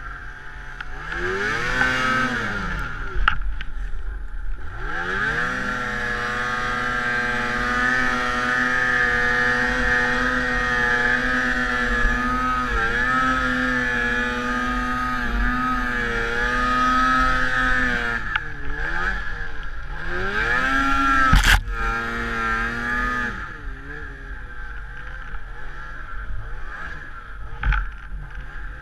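Snowmobile engine revving hard through deep powder. It climbs and drops, then holds high for a long stretch with small dips, eases and revs up again, and settles lower near the end. A single sharp knock comes about three-quarters of the way through.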